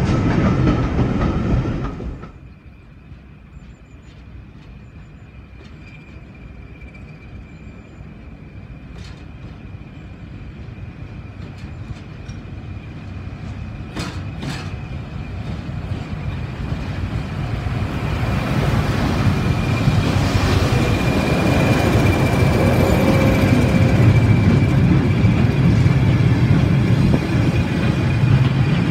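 Railway wagons rolling past close by, with wheels clattering on the rails, cut off after about two seconds. Then a diesel locomotive's engine, with a steady high whine, grows gradually louder as it draws near and passes hauling a train of hopper wagons.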